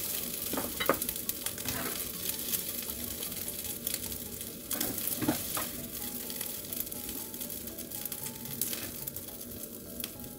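Fried rice sizzling in a stainless steel frying pan while a spatula scrapes and scoops it out. The metal spatula clicks against the pan a few times near the start and about five seconds in, and the sizzle slowly dies down.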